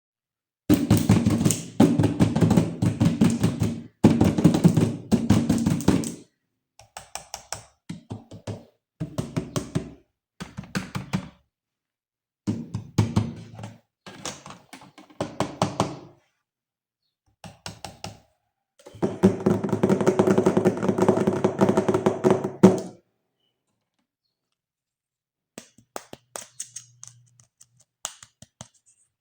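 Electric toy gun firing in bursts: rapid buzzing shots with a pitched electronic tone under them. There are several trigger pulls of a second or two each, and two longer ones. A few light plastic clicks come near the end.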